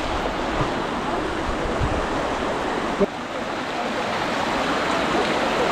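Shallow muddy floodwater rushing through a village lane, a steady wash of flowing water. A brief knock about three seconds in.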